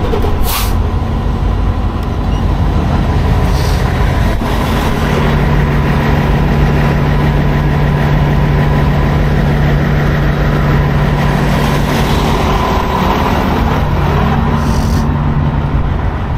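Large diesel truck engine running steadily at idle, with short sharp air hisses soon after the start, about four seconds in, and near the end.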